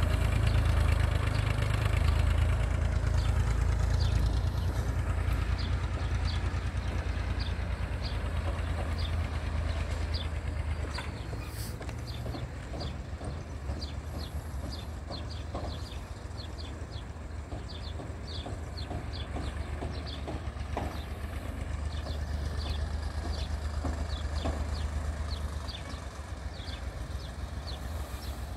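IMT 558 tractor's diesel engine pulling a three-furrow plough, a steady low drone that eases off and swells again as the tractor works along the field. Short high chirps are scattered over it.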